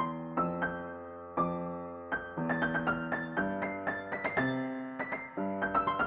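Piano music: single notes and chords struck every half second or so, each ringing out and fading before the next.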